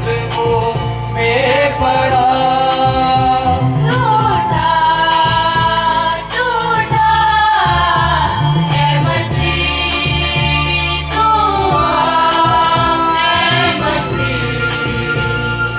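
A group of singers, women's voices to the fore, singing a song in unison with Casio electronic keyboard accompaniment, amplified through a PA system.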